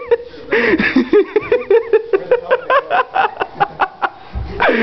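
A person's voice imitating a turkey, making rapid gobbling and clucking calls in quick rising-and-falling syllables, with a low thump near the end.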